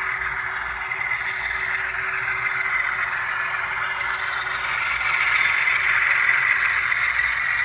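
HO scale model train running past: a steady whir and rattle of the locomotive and the freight cars' wheels rolling on the track, growing louder about five seconds in as the cars pass close.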